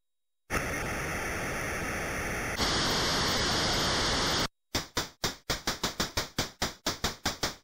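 Electronic white-noise sound effects. A steady static hiss turns brighter and louder about halfway through, then cuts out. It is followed by a quick run of short noise blips, about five a second, one for each binary digit printed on the screen.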